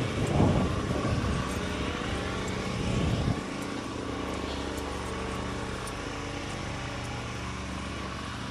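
An engine running steadily, louder and rougher for the first three seconds or so, then dropping to a lower, even running sound.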